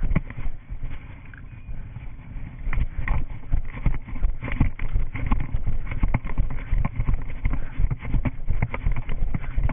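A runner's footfalls on grass, quieter for the first couple of seconds and then settling into a steady running rhythm of thuds, about three a second, from about three seconds in.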